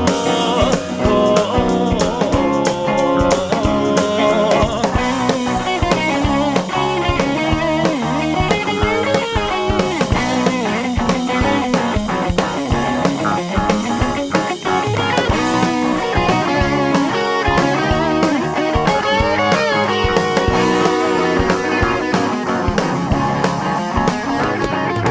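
Instrumental rock band passage: electric guitar playing over bass and drum kit, in a psychedelic rock style.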